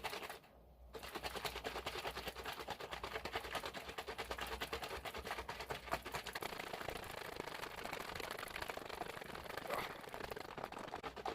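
Cream being shaken hard by hand in a container to churn butter: fast, steady rhythmic sloshing and knocking, with a brief pause about half a second in.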